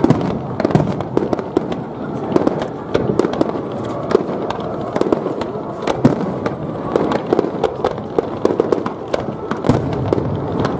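Aerial fireworks shells bursting in rapid succession: a dense, continuous barrage of booms and sharp cracks with crackling in between.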